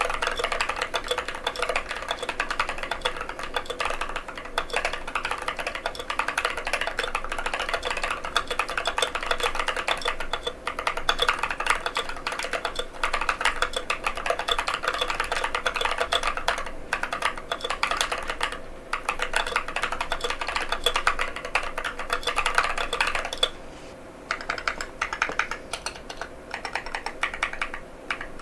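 Fast, continuous typing on a NovelKeys NK87 aluminium mechanical keyboard with Durock White Lotus tactile switches: a dense stream of key clacks. There is a short lull about four-fifths of the way through, then it resumes.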